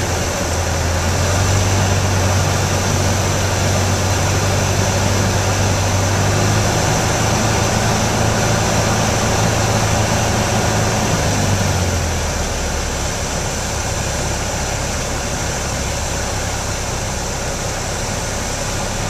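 Cockpit noise of a Piper Warrior III's Lycoming O-320 four-cylinder engine and propeller running at low power during the final approach and landing, over a steady rush of air. The engine's low drone drops away about twelve seconds in, leaving the steady rushing noise.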